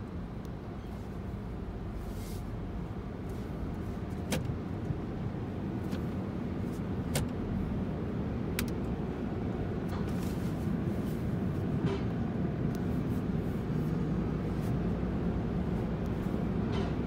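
Steady low rumble of car wash tunnel machinery and spinning brushes, heard from inside the car cabin, growing slowly louder as the car nears the brushes. Several sharp clicks sound between about four and nine seconds in.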